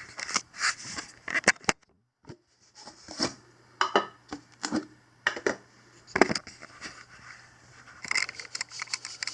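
Irregular clicks, light knocks and scrapes of objects being handled and set down, with a short break of silence about two seconds in.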